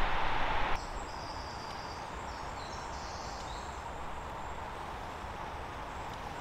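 Quiet woodland ambience: a steady background hiss with faint, high bird song between about one and three and a half seconds in. It opens with a louder hiss that cuts off abruptly just under a second in.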